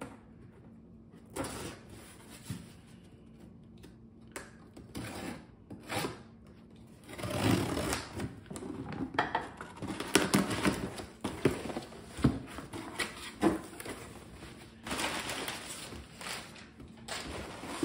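Cardboard shipping box being opened by hand. First come scattered taps and scrapes on the cardboard. About seven seconds in, packing tape is peeled and torn off with a run of ripping and rustling. Near the end the flaps are pulled open and crumpled packing paper rustles as it is lifted out.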